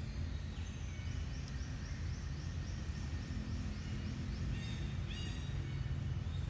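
A bird chirping a quick series of short, high, falling notes, about three or four a second, over a steady low rumble.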